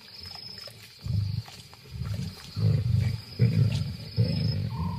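Lions growling over a kill: after a quiet first second, a run of deep, rough growls in short bursts, one after another.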